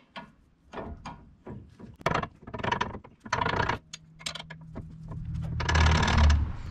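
Steel hand tools clinking and knocking as a socket and wrench are handled at a truck's front brake caliper. Near the end comes about a second of rapid clicking as a wrench runs a caliper bracket bolt in snug.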